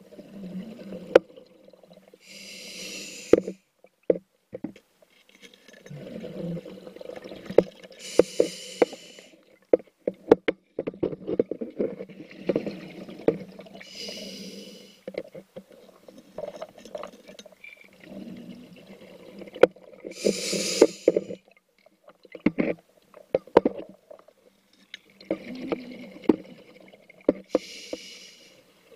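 A scuba diver breathing through a regulator underwater, about five breaths: each a short hiss of inhalation, followed by a few seconds of exhaled bubbles rumbling and clicking past the camera.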